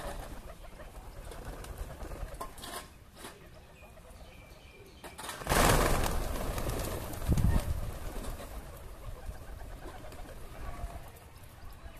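A flock of domestic pigeons cooing as they feed. About five and a half seconds in, the whole flock takes off at once in a loud clatter of flapping wings, with a second, shorter burst of wingbeats a couple of seconds later.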